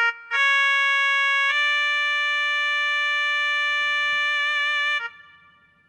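Casio MZX300 arranger keyboard playing its shehnai voice: a short note, then a held note, then a slightly higher note held for about three and a half seconds with a slight wavering near the end, breaking off about five seconds in.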